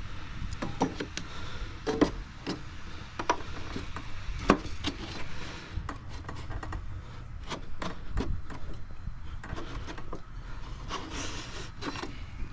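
Irregular clicks and knocks of a 14mm socket wrench and a wooden block against a lawnmower's steel blade and deck as the blade bolts are worked loose.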